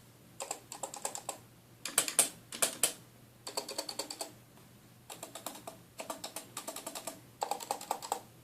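Typing on a Cooler Master NovaTouch keyboard, its Topre-type capacitive switches fitted with 0.8 mm o-rings that damp the bottom-out: quick keystrokes in short bursts with brief pauses between, a few heavier strokes about two seconds in.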